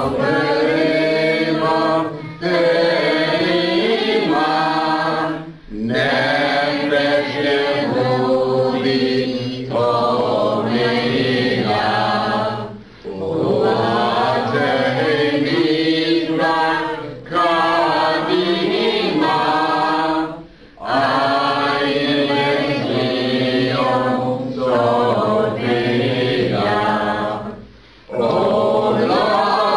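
A group of voices singing a slow, chant-like song in phrases of a few seconds each, with short breaks between the phrases.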